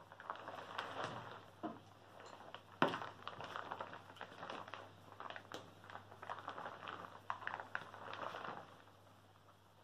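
Paintbrushes and paper handled on a tabletop: soft, irregular rustling and scraping with small clicks, and one sharp tap nearly three seconds in.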